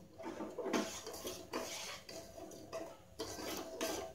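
Steel ladle scraping round the bottom of a stainless-steel pot in repeated strokes, stirring sugar and water so the sugar dissolves into a syrup.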